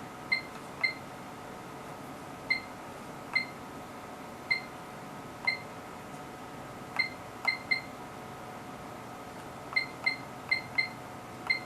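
Front-panel keys of an HP 3245A Universal Source being pressed, each press answered by a short high electronic beep: about fourteen beeps at an uneven pace, some in quick pairs and runs, as the instrument's range and mode menus are stepped through.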